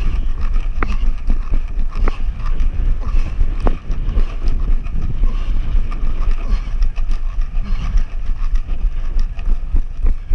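Heavy wind buffeting and handling rumble on a marker-mounted action camera's microphone while it is carried along, with scattered sharp clicks and knocks through it.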